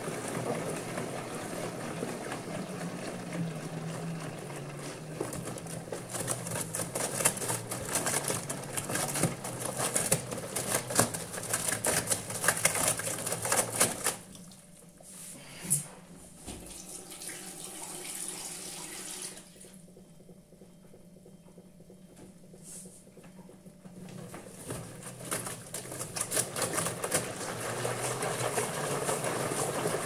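LG front-loading washing machine tumbling wet towels with its door open: motor hum, with water and cloth sloshing and slapping in the drum. The drum stops about halfway through, and after a quiet pause it starts turning again and builds up near the end.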